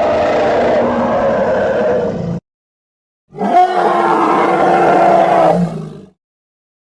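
Daspletosaurus roar sound effects, one after another. One roar cuts off abruptly about two seconds in. After a second of dead silence, a second deep, growling roar with a held pitch runs for nearly three seconds and fades out.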